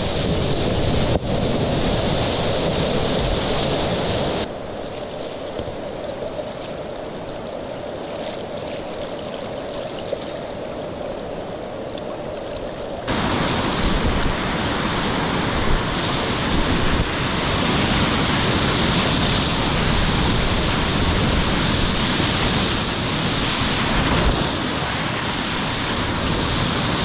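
Whitewater of a river rapid rushing and splashing around a kayak, close on a GoPro's microphone with wind buffeting it. About four seconds in the rush drops abruptly to a quieter, duller level, and about thirteen seconds in it jumps back louder.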